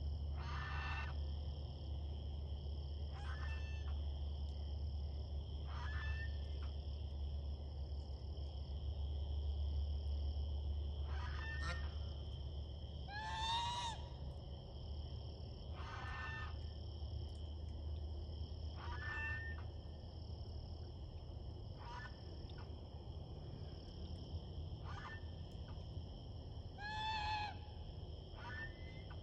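Geese calling at the nest: short pitched honks about every two to three seconds, loudest about halfway through and again near the end, over a steady high chorus.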